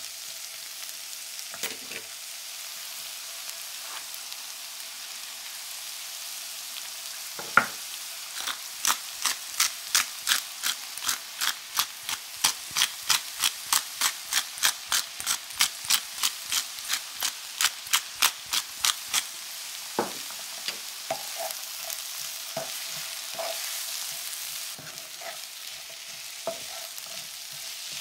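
Butternut squash and onion frying in a nonstick pan with a steady sizzle, stirred with a wooden spatula. A single sharp knock comes about a quarter of the way in, followed by a rhythmic run of sharp clicks, about three a second, lasting some ten seconds. A few scattered knocks come near the end.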